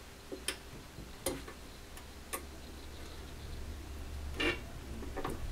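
An Allen key working a hex screw loose on the end cheek of a Marshall JMP-1 preamp's metal case: several sharp metal clicks about a second apart, over a low steady hum.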